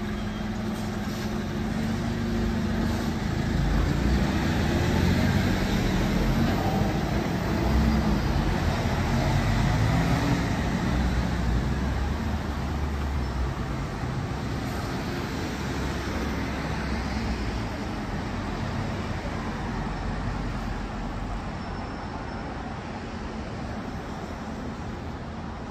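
Road traffic on a city street: cars and a bus running past, a steady rumble that swells louder a few seconds in and eases off in the second half.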